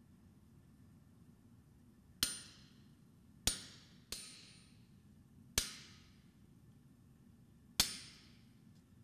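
Five irregularly spaced blacksmith's hammer blows on steel at the anvil during hand forging. Each is a sharp strike with a short ring that dies away.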